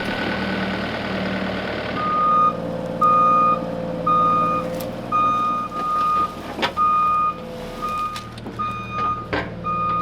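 Vehicle back-up alarm beeping about once a second, starting about two seconds in, over a running engine, with a couple of sharp knocks.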